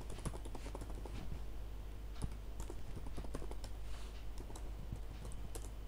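Computer keyboard typing: quick, irregular key clicks, with a low steady hum underneath.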